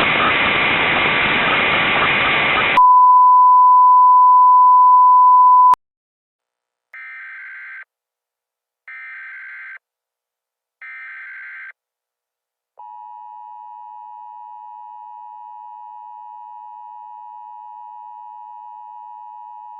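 Emergency Alert System interruption: a few seconds of hissing static, a steady high tone for about three seconds ending in a click, then three short warbling SAME data header bursts about two seconds apart, then the two-tone EAS attention signal held steadily.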